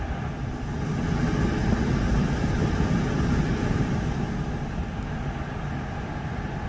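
Steady road and tyre rumble of a car driving at speed, heard from inside the cabin, swelling slightly and then easing.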